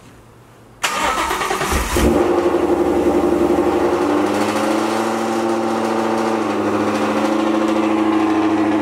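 Ford Coyote 5.0 V8 with longtube headers and a Corsa Extreme cat-back exhaust cranking over about a second in, catching loudly, and settling into a fast idle whose pitch steps down a little as it steadies. This is the first start on a freshly flashed VMP E85 tune.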